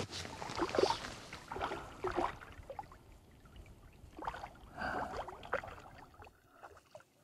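Water splashing in irregular bursts as a hooked Arctic char thrashes at the surface beside a landing net.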